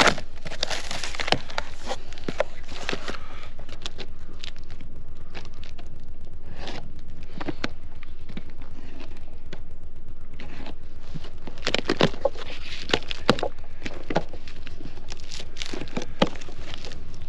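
Cardboard shipping box being opened by hand and a boxed tent slid out of it: scraping, rustling and knocks of cardboard, busiest at the start and again in the last few seconds.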